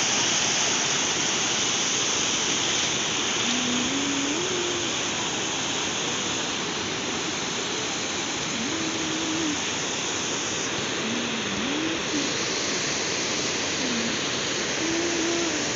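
Steady rush of turbulent flowing water. A few faint, short pitched calls sound over it at intervals.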